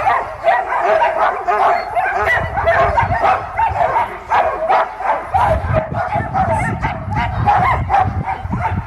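Many sled dogs barking and yelping together in a constant overlapping chorus: the excited din of a kennel yard as teams set off on a run.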